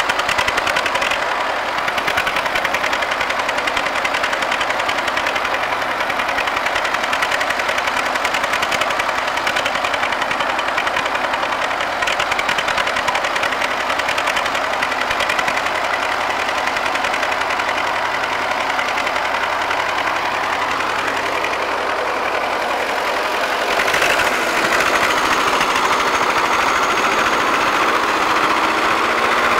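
MTZ-80 tractor's D-240 four-cylinder diesel running at high revs with a rapid, hard knocking; near the end it rises in pitch and gets louder. The engine is smoking heavily, the sign of a fault with its freshly overhauled fuel injection pump.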